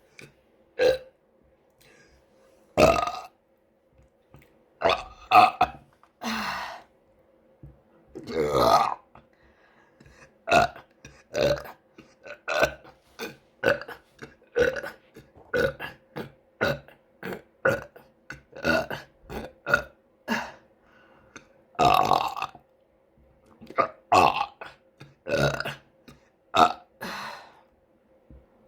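A person burping again and again, some thirty separate burps, a few of them long and drawn out, the rest short and coming about two a second from around ten seconds in.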